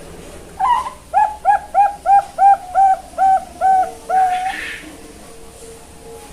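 Young zebra dove (perkutut) cooing its song: a short opening note, a run of eight quick, even notes at about three a second, and a longer held closing note.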